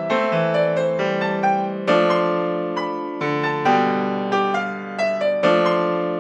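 Solo piano playing a slow run of chords with a melody on top. Each chord is struck and left to fade, a new one roughly every one to two seconds.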